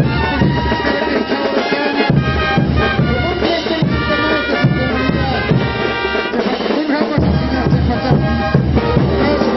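Andean festival dance music: wind instruments playing a melody over a steady drum beat.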